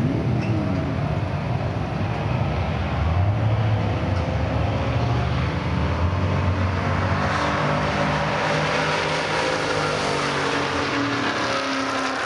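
1982 Chevrolet S-10 pickup with a 350 small-block V8, and the car racing it, accelerating hard down a drag strip. The engine note climbs in pitch again and again as they shift up through the gears.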